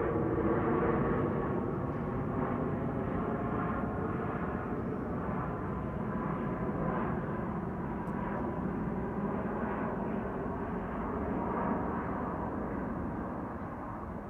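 Airplane engines passing: a steady drone with several whining tones over it, gradually fading.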